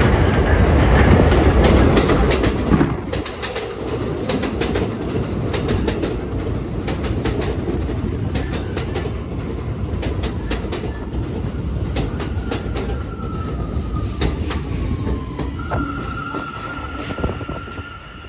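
R179 subway train running on elevated track into the station: loud running noise for the first few seconds, then wheels clacking and clicking over the rail joints. Later a whine falls in pitch as the train slows, followed by a steady high whine near the end.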